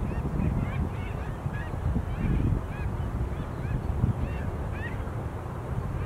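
A flock of birds calling, many short calls that rise and fall, overlapping several times a second, over a steady low rumble.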